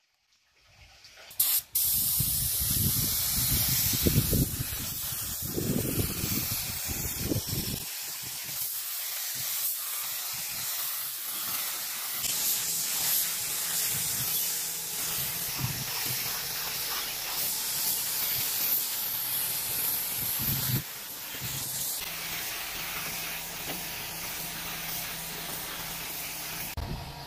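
A steady spray hiss, starting about a second and a half in, with a faint low hum underneath from about twelve seconds in.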